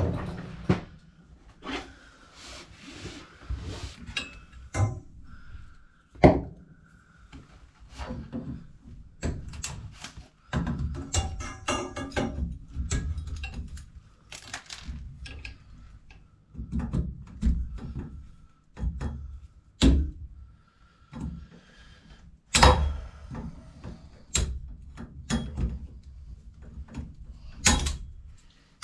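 Tools and plumbing parts being handled: scattered knocks, clunks and rattles, with several sharper clacks standing out, and a brief hiss a couple of seconds in.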